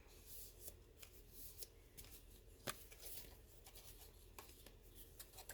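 Faint rustling and handling of paper and cardstock, with scattered soft taps and one sharper click about two and a half seconds in.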